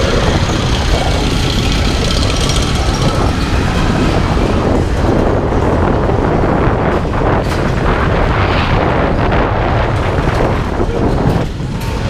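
Space Mountain's roller coaster train rumbling steadily along its steel track, heard from on board, with a brief dip in level near the end.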